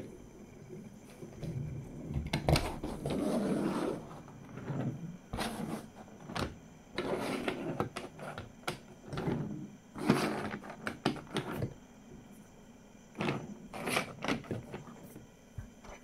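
Wooden Thomas toy engine pushed by hand along wooden railway track: its wheels roll and rattle over the track, with sharp wooden clicks and knocks. The sound comes in several irregular bursts.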